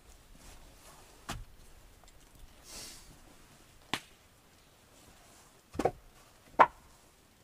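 A few sharp knocks at irregular intervals, one a quick double, the loudest near the end.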